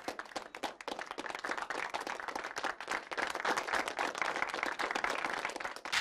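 A classroom group of schoolchildren applauding, many hands clapping in a dense, irregular patter that stops abruptly just before the end.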